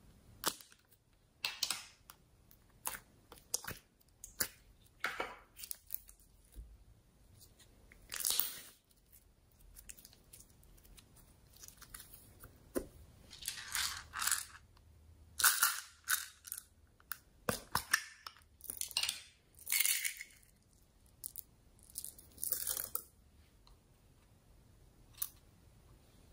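Small plastic slime containers handled and pulled open: irregular clicks and clacks with short scraping rustles, busiest in the second half.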